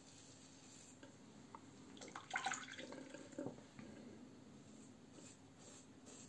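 Muhle R89 double-edge safety razor with a Treet Platinum blade scraping through lathered stubble: a short, crackly stroke about two seconds in, followed by a duller rub. Otherwise only faint room tone.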